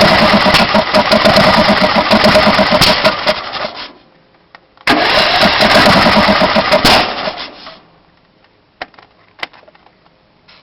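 Intek 18.5 HP riding-mower engine being cranked by its starter in two attempts, the first lasting about four seconds and the second about three, each stopping without the engine catching. The engine won't start.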